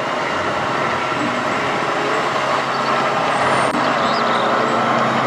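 Massey Ferguson tractor's diesel engine running steadily under load, pulling a mounted reversible plough.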